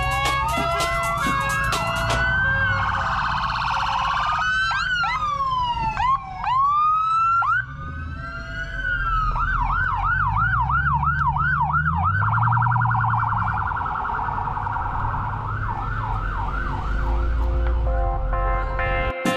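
Electronic police-car sirens cycling through patterns: a two-tone at the start, slow rising and falling wails, and fast yelps of about four a second from about ten seconds in, with a car engine running and revving beneath. Cuts off just before the end.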